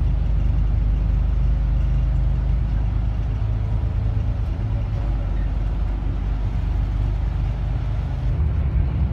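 Steady low engine and road rumble of a Bustech CDI double-decker bus on the move, heard from inside the cabin. The low rumble shifts in pitch about 8 seconds in.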